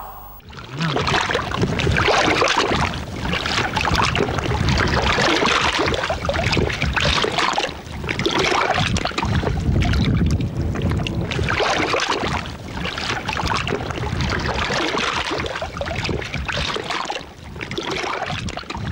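Water sloshing and washing in repeated surges, swelling and falling every couple of seconds.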